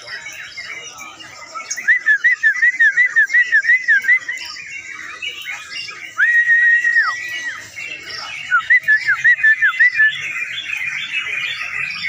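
Caged yellow-vented bulbuls (crucukan) singing in full rapid song: a fast run of repeated whistled notes, one long steady whistle about six seconds in, then another fast run near the end, over constant chirping from many other caged birds.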